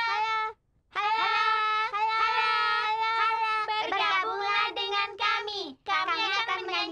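Children singing a Christmas song. A short held note breaks off, then a longer phrase of sustained notes follows, and quicker syllables come from about four seconds in.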